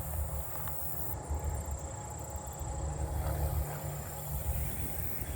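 Swamp cicada calling, a steady high buzzing drone, with bouts of fine high ticking from other insects about a second in, over a low steady rumble.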